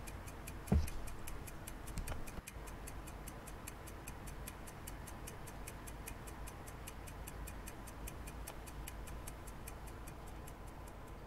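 Steady, rapid ticking, several even ticks a second, over a low hum, with a single low thump about a second in.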